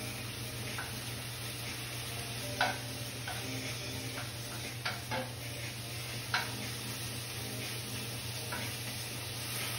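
Spinach sizzling gently in sesame oil in a nonstick frying pan as it is stirred, with a few sharp taps of the utensil against the pan. The spinach has wilted down and is nearly cooked.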